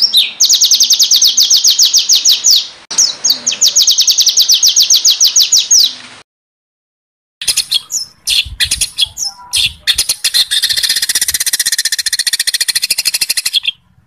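Songbird song: fast, harsh trills of high notes repeated about ten times a second, then a sudden cut to silence for about a second. After it, a jumble of varied calls leads into another long, dense trill.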